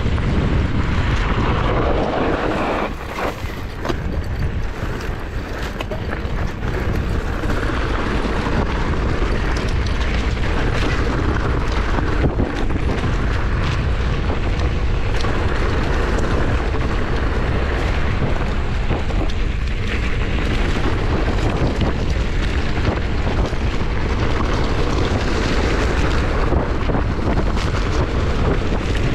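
Wind buffeting the microphone of a moving mountain bike, over tyres rolling on a dirt singletrack, with scattered clicks and rattles from the bike. The wind eases for a few seconds early on, then comes back.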